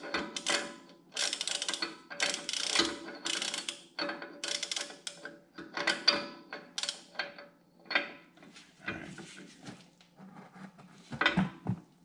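Ratchet wrench clicking in short bursts, about one burst a second, as the front wheel's spindle nut is backed off; the bursts thin out and get quieter in the last few seconds.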